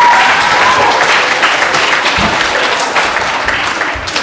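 Hall audience applauding a student whose name has just been called, with a held high tone over the clapping that ends about a second in.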